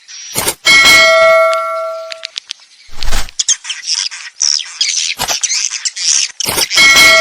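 Edible-nest swiftlet roosting calls on a swiftlet-house lure track: rapid twittering chirps and clicks. A ringing bell-like chime sounds twice, about a second in and near the end, each fading over a second or so.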